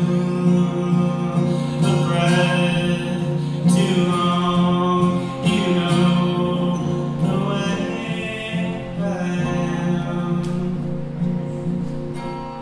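Solo acoustic guitar playing with a man singing long, held phrases over it; the music gets softer near the end.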